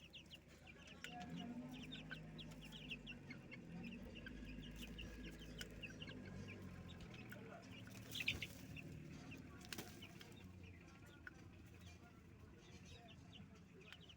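Chickens clucking, faint, with many short high chirps throughout and a louder short call about eight seconds in.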